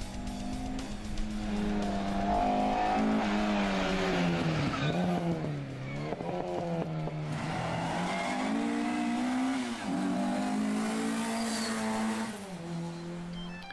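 Classic rally car's engine revving hard through the gears, its note climbing and then dropping sharply several times as the driver shifts or lifts. The engine note falls away near the end.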